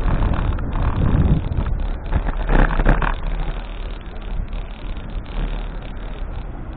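Wind on the microphone mixed with the noise of passing road traffic, heaviest in the low end. It is louder over the first three seconds, with a brief surge a little before the three-second mark, then eases off.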